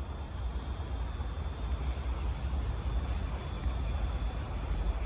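Insects droning steadily at a high, even pitch, over a low steady rumble.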